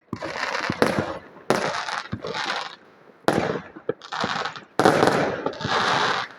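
Fireworks going off: a series of about six crackling bursts, each starting sharply and running on for half a second to a second.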